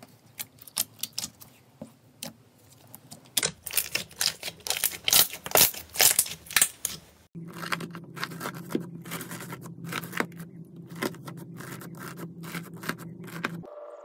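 Hands working slime, making close-up sticky crackling, popping and clicking sounds. The crackles grow dense and loud in the middle. After a sudden cut they go on over a steady low hum, and another cut comes near the end.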